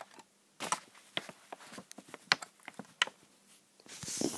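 Scattered light clicks and taps of small plastic Lego pieces being handled, with a brief brushing rustle near the end.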